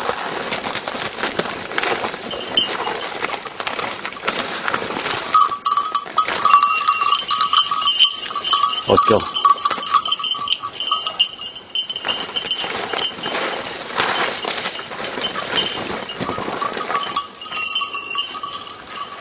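A hunting dog's collar bell ringing in a long run from about five seconds in and again near the end, as the dog works through thick bramble. Brush crackles and rustles throughout as the handler pushes through the undergrowth.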